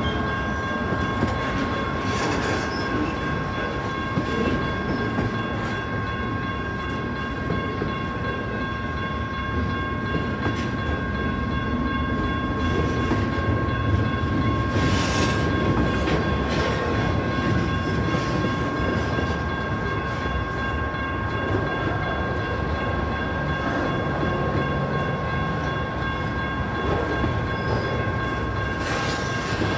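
Double-stack intermodal freight train rolling steadily past a grade crossing, a continuous rumble and clatter of wheels over the rails. Over it, electronic crossing bells ring without a break.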